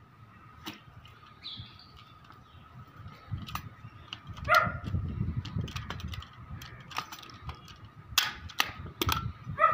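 A dog barks once about halfway through and again near the end. Shortly after 8 s come two sharp snaps from a hand pop-rivet gun setting a rivet through the mesh panel's frame.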